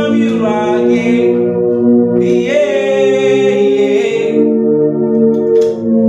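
Gospel worship chant: a solo voice sings long, held phrases over a steady sustained keyboard pad chord. One phrase falls at the start and another in the middle.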